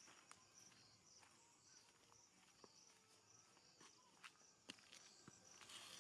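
Near silence: faint crickets chirping in a pulsing rhythm, fading after about a second, with a few soft, scattered clicks.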